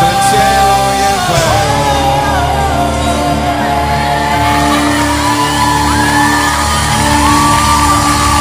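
Music with long, held vocal lines that waver and glide between notes over a steady low drone.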